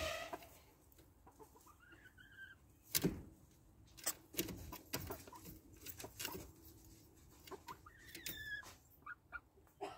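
Hens clucking and giving short calls now and then, among scattered sharp taps and knocks.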